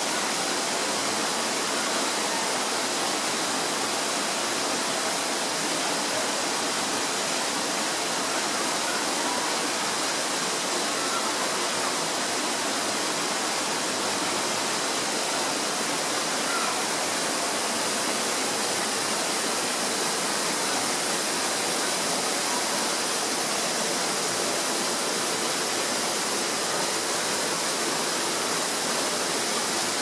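A steady, even rushing noise like running water, unchanging throughout with no distinct events.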